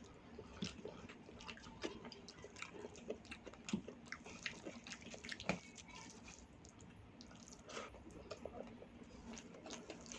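A person eating: close, wet chewing and mouth smacks, a run of irregular soft clicks with a few sharper ones.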